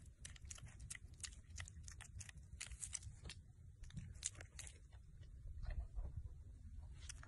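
A piglet chewing and smacking its mouth: a quick, irregular run of soft crunching clicks over a faint low rumble.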